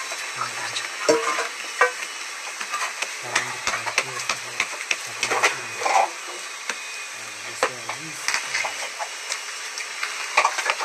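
Hands working bread dough: balls of dough patted and turned on a flour-dusted cloth and dough pulled from a steel bowl, giving soft slaps, rustling and many scattered clicks and crackles.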